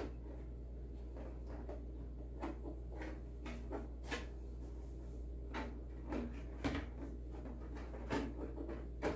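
Scattered short plastic knocks and clicks as the Traxxas Fiesta ST Rally's body shell is handled and pressed down on its chassis, over a steady low room hum.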